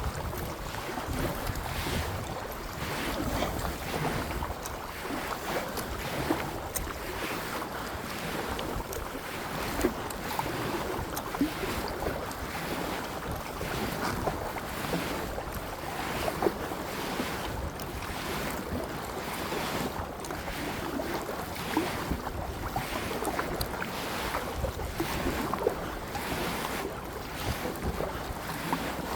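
Kayak paddling: paddle strokes splashing and water lapping at the hull in a steady rhythm, with wind rumbling on the microphone and a few sharp knocks.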